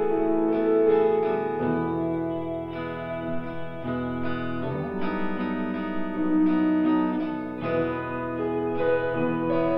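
Instrumental background music, with a low bass part coming in about one and a half seconds in.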